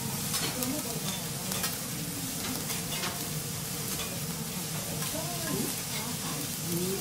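Fried rice sizzling on a steel teppanyaki griddle, with a metal spatula scraping and tapping the hot plate in repeated short strokes.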